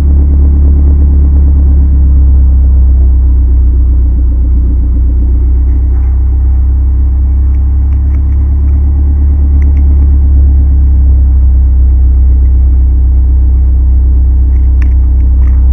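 Car engine idling, heard from underneath the car close to the exhaust pipe: a loud, steady, low rumble. The exhaust has a small leak freshly patched with a clamp and exhaust bandage.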